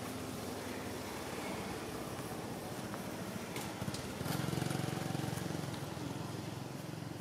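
A motor vehicle's engine running steadily in the background, swelling louder about four seconds in as if passing by, with a few faint clicks.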